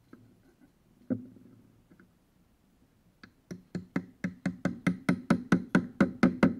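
Rapid light taps driving a flat-blade screwdriver under the metal handle plate of a Marshall amp cabinet to pry out its nail-like rivets. One knock comes about a second in, then a steady run of about five sharp knocks a second starts about three seconds in.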